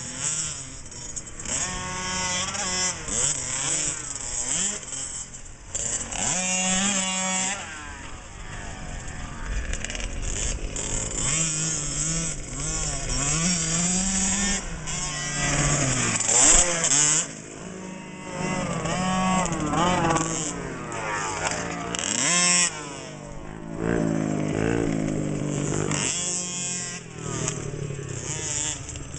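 Small two-stroke 50cc youth motocross bikes racing, their engines revving up and down over and over as the riders work the throttle through jumps and corners. The pitch keeps rising and falling, with a couple of brief dips.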